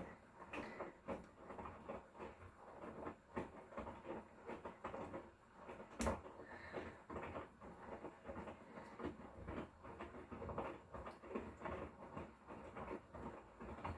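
Hotpoint Core washing machine drum turning during a wash, the laundry tumbling with irregular soft thuds and rustle. There is one sharp click about six seconds in.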